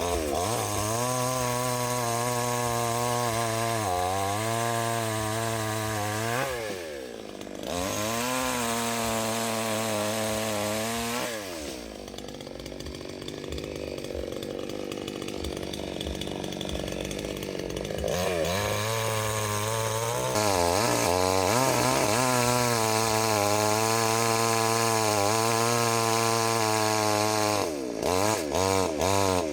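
Chainsaw running at high revs and cutting wood. Its pitch sags and recovers several times as it takes the load. For several seconds in the middle it runs quieter and lower before climbing back to a steady high run.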